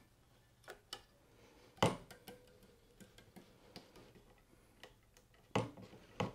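Scattered clicks and taps of hands handling the taut strings of a tennis racquet, with a sharp snap about two seconds in and two more near the end.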